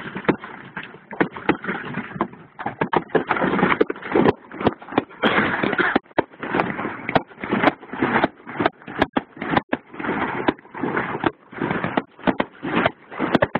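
Fireworks going off: a rapid, irregular run of bangs and crackles, several a second at times, over a rushing noise.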